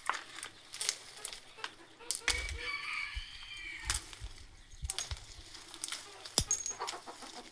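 A chicken gives one drawn-out wavering call about two seconds in, lasting about a second and a half, amid scattered sharp clicks and crackles.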